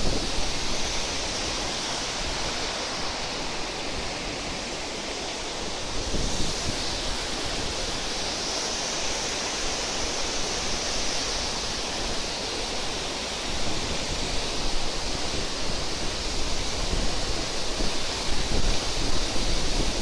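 Steady rush of water from an approximately 120 m waterfall crashing onto rocks, mixed with a fast, swollen river. Wind buffets the microphone with low thumps, more often in the second half.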